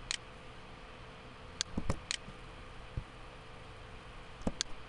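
Computer mouse clicks, sharp and short, in small groups: one just after the start, three or four about two seconds in, and two near the end, over a faint steady hum.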